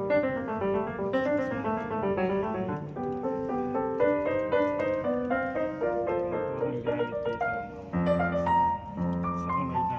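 Background piano music: a quick run of many short notes, with the texture changing about eight seconds in.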